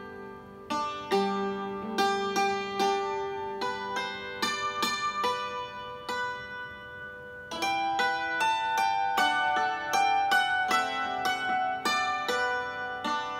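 Hammered dulcimer played with two hammers: a melody of struck strings whose notes ring on. The strikes are sparse just before the middle, then come quicker after about seven and a half seconds.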